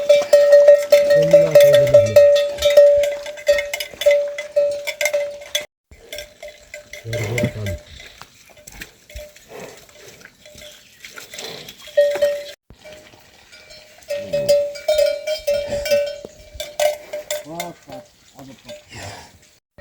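Livestock bells clanking over and over as the animals move, with a ringing tone that keeps restarting. Several animal calls come in between.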